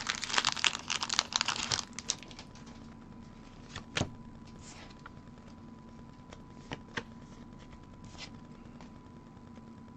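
Foil booster-pack wrapper crinkling and tearing as it is opened, for about the first two seconds. After that there are a few light taps of cards being handled.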